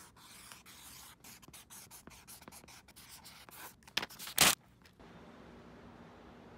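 Pen scratching quick strokes on notebook paper, with two louder, sharper scrapes about four seconds in. The strokes stop after about five seconds, leaving a steady faint hum of room tone.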